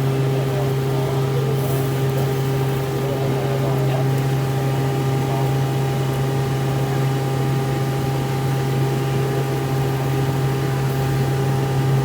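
Steady mechanical hum from a running machine, with a strong low drone and fainter higher tones held at constant pitch, over a faint murmur of distant voices.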